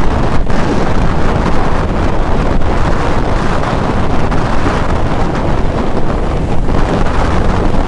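Loud wind rushing and buffeting over the microphone of a motorcycle-mounted camera at highway speed, a dense steady roar with constant flutter.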